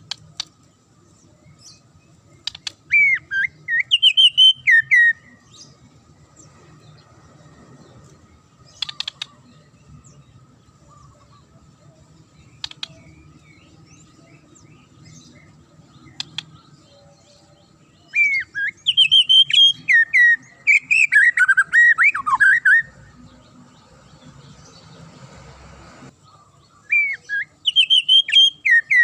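White-rumped shama (murai batu) singing sharp, fast-gliding whistled phrases in three bouts, with a few short sharp clicks in the pauses between them.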